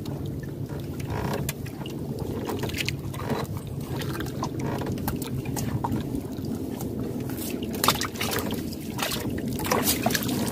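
A wet nylon gill net being hauled over the side of a wooden boat and a fish worked out of the mesh: dripping, rustling and water lapping at the hull, with scattered clicks. A low hum sits underneath and stops about seven seconds in. Near the end a fish is flung into the water with a splash.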